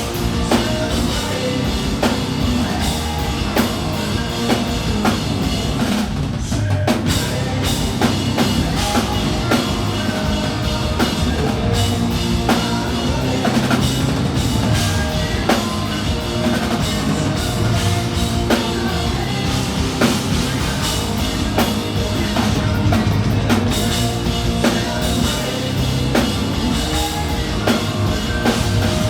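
Hard rock band playing live, with the drum kit to the fore over guitar and bass; the full band thins out briefly about six seconds in.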